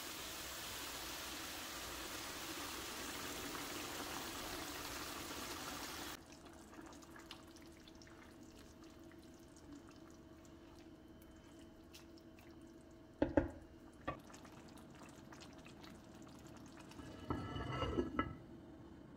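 Boiling water pouring in a steady stream into a pot of fried pasta and vegetables, cutting off after about six seconds. Quieter stirring follows, then a sharp knock, and near the end a pot lid set down with a ringing clatter.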